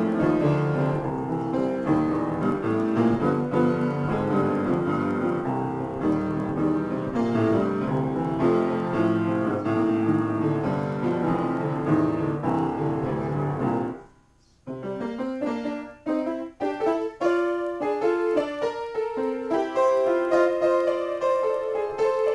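Upright piano played solo and improvised: dense, sustained chords low in the register, breaking off into a short pause about fourteen seconds in, then sparser, detached notes and chords higher up.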